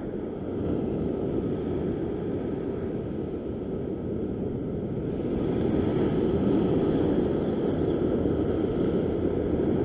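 Ocean surf surging and breaking against a rock ledge: a steady low rush that swells about halfway through as a larger wave washes in.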